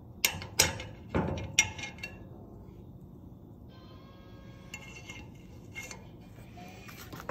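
An Allen key and small metal parts clinking and scraping against a motorcycle engine side cover on a workbench: a handful of sharp clinks in the first two seconds, a brief pitched scrape about four seconds in, then a few more light clicks.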